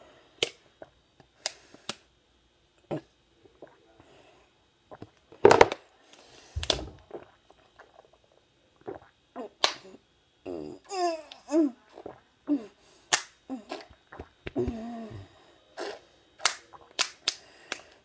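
A person gulping water from a small 8 fl. oz. plastic water bottle, heard as a string of sharp clicks with a few short throaty vocal sounds between them. One louder knock about five and a half seconds in.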